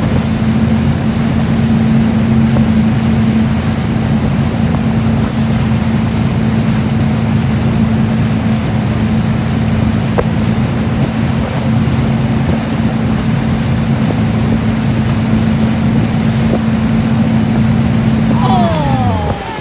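Towboat's engine running steadily at speed over the rush of churning wake water and wind; near the end the engine slows, its pitch falling.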